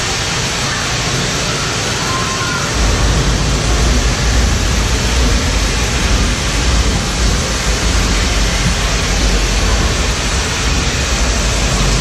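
Steady hiss of falling water from an artificial rain shower and waterfall in a rainforest exhibit. A deep low rumble joins about three seconds in.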